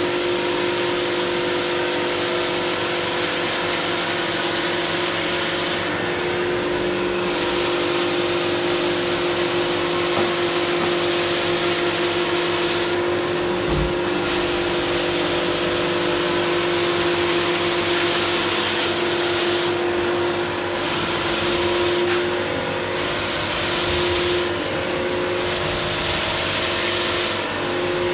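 Carpet-cleaning extraction machine running: a steady vacuum-motor hum with loud hissing suction through the wand as it is drawn across the carpet. The hiss drops briefly about five times, the first around six seconds in.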